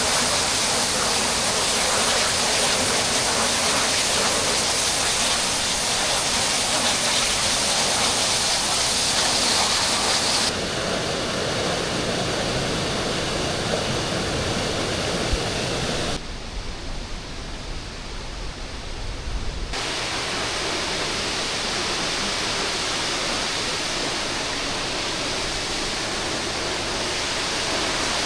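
Waterfall rushing steadily. About ten seconds in the sound changes abruptly, losing some of its hiss, and a few seconds past the middle it drops quieter and deeper for a few seconds before steadying again.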